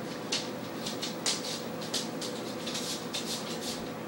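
Yellow Labrador puppy chewing and gnawing on a rope toy: short scratchy rasps about three times a second, with a few sharper clicks in the first two seconds.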